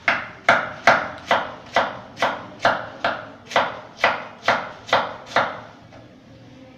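Chef's knife shredding a cabbage on a cutting board: a steady run of about a dozen even knocks, roughly two a second, each a blade stroke through the leaves onto the board, stopping about five and a half seconds in.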